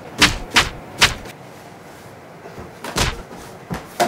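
A long cardboard tube swung in hard blows against a person: three quick smacks within the first second, a pause, then a few more near the end.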